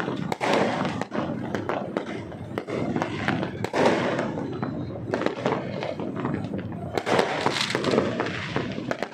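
Fireworks going off continuously, with many sharp bangs and crackles in quick, irregular succession.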